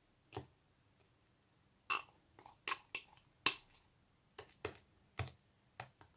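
Sticky, not yet fully activated PVA-glue slime being pulled and peeled off a ceramic mixing bowl by hand, making a scattering of short pops and clicks at irregular intervals.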